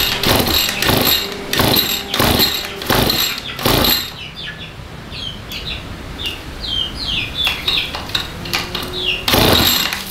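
Small two-stroke grass-trimmer engine, fitted with a mini chainsaw carburettor, being pull-started: a quick series of recoil-starter pulls, each a short rasp of the engine cranking over, then a pause of a few seconds and one more pull near the end.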